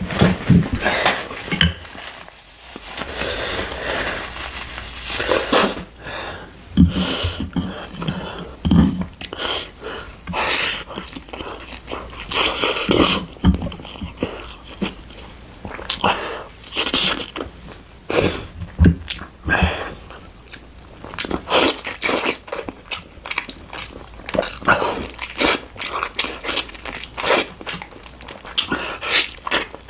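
Close-miked eating sounds: a person biting and chewing food, with irregular crunches.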